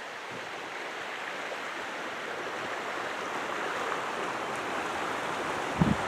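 River water rushing in a steady hiss that slowly grows louder, with one brief low thump near the end.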